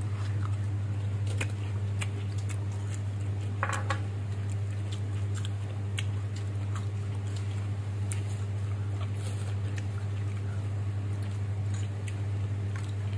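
A metal spoon clicking and scraping a few times against a ceramic rice bowl, with small eating sounds, over a steady low hum.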